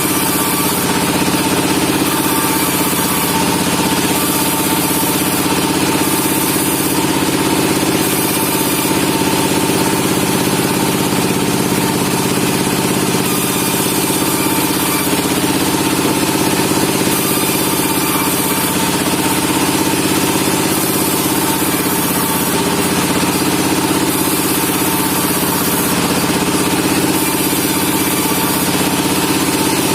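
Sawmill machinery running steadily: a constant engine hum with a steady high tone over it.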